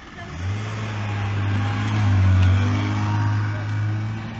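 Mitsubishi Pajero SUV's engine running as it drives past close by: a low steady hum that swells to its loudest a little past halfway, then eases off.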